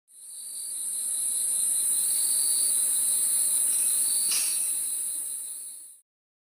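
A chorus of night insects: a dense, steady, high chirring with a lower trill that comes and goes. It fades in at the start and cuts off abruptly about six seconds in.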